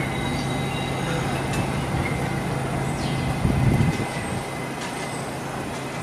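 New York City subway train at a station: steady rumble and rail noise with a low hum, which cuts out about four seconds in, and a brief louder swell just before.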